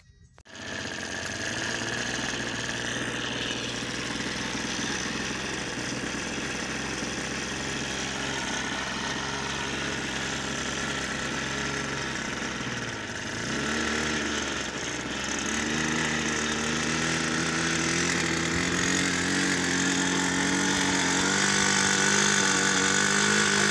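Small engine of a radio-controlled model airplane running steadily at low speed. It cuts in suddenly at the start, its pitch dips briefly about halfway, then climbs and holds higher and a little louder over the last several seconds.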